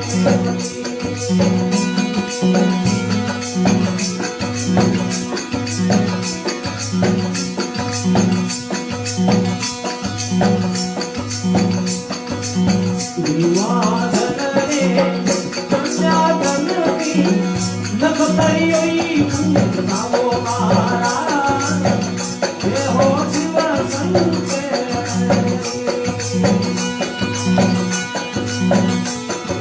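Instrumental interlude of a Rajasthani desi veena bhajan: a steady low drum beat under constant jingling percussion, with a melody line rising and bending through the middle.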